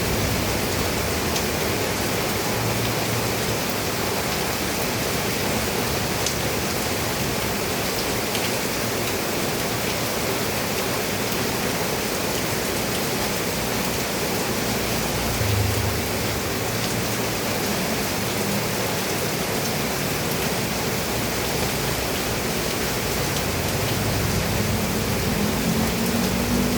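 Steady, heavy rain falling on a roof, an even dense patter throughout. A low rumble swells briefly about halfway and builds again near the end.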